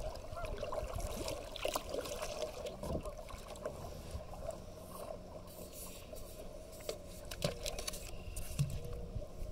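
Kayak paddle pushed down into lake water to sound the depth: faint water trickling and dripping, with a few light knocks and scrapes against the kayak.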